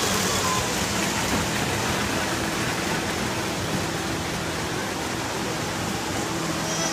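Steady, even hiss-like background din with a faint low hum under it; no distinct events stand out.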